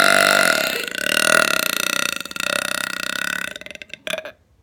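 A person's long, loud burp, drawn out over several seconds: steady at first, then rougher and more broken, cutting off about three and a half seconds in.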